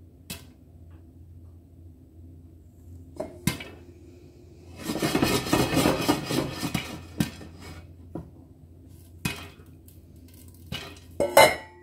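Popcorn popping in a covered pan on residual heat after the hob is switched off: sharp single pops every second or two, the last and loudest near the end, a sign the batch is nearly done. About five seconds in, the pan is shaken for a couple of seconds, the popped corn rattling against the pan and its glass lid.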